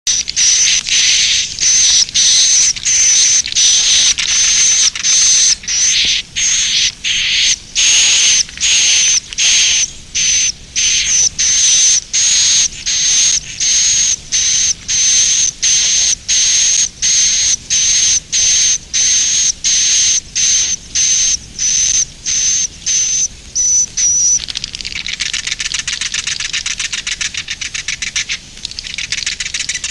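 Edible-nest swiftlet 'inap' (roosting) call: short high chirps repeated evenly, a little under two a second. About 24 seconds in it changes to a continuous rapid twittering.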